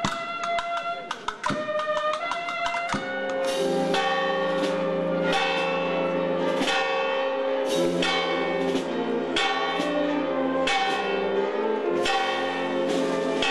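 Music ends about three seconds in, and several church bells take over, pealing together with overlapping strikes and long ringing tails.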